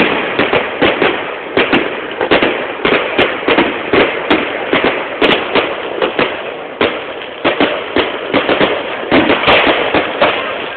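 Fireworks going off: a dense, continuous crackle of many rapid small bangs, with a few louder reports standing out.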